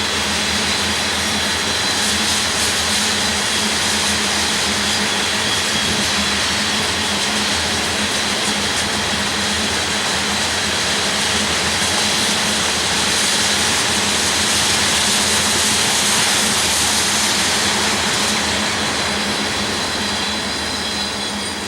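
A loaded crude oil freight train's cars rolling steadily past with a rushing rumble of wheels on rail and a thin high wheel squeal over it. The sound eases off over the last few seconds.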